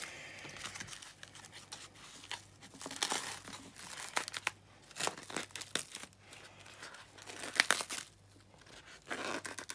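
Plastic cling film being peeled and pulled off a foam meat tray, crinkling and crackling irregularly, with a few sharper crackles, the loudest about three-quarters of the way through.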